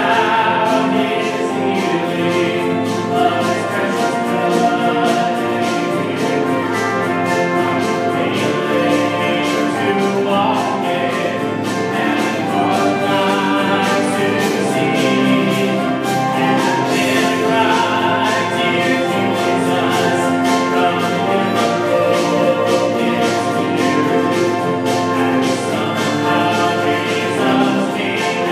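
Acoustic bluegrass band playing a gospel hymn, with acoustic guitar and other picked strings in a steady, continuous strum.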